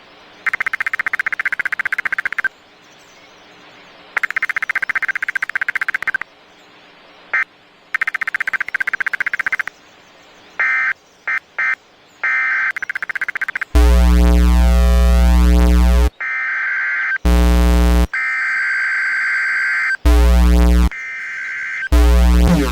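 Emergency Alert System SAME header data bursts: three buzzy digital tone bursts of about two seconds each with short pauses, then a run of choppy shorter bursts. About two-thirds of the way in, a much louder, harsh layered alert tone with deep bass starts, cutting in and out with more data bursts in between.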